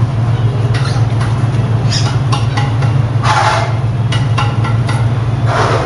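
A steady low machine hum, with two short hissing noises about three and five and a half seconds in.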